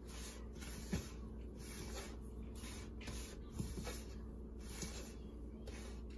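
Hand rubbing flour and melted ghee together in a mixing bowl: soft swishing strokes, about two a second, as the fat is worked in until the flour turns crumbly.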